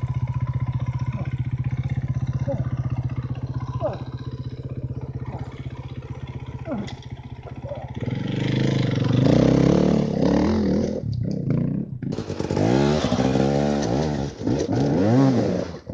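Enduro motorcycle engine idling steadily, then from about eight seconds in revving hard up and down as a bike climbs a rocky trail section, with a short break in the revving about three-quarters of the way through.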